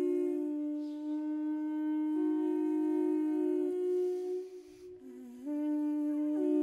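Live drone music: two long held notes sounding together, steady and rich in overtones. It fades briefly about four and a half seconds in, then a note slides down into place near the end.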